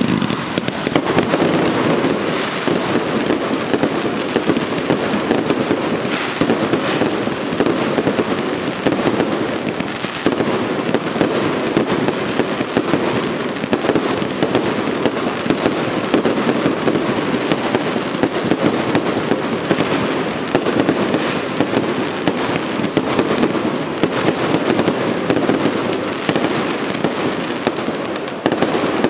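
Professional fireworks display firing in a dense, continuous barrage, with comets and aerial shells launching and bursting one over another. The many sharp reports and crackling run together without a pause.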